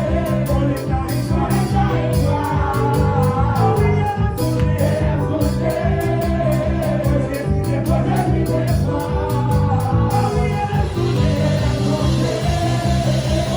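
Church praise band playing a worship song with singing over a steady beat; the sharp beat strokes fall away about ten seconds in.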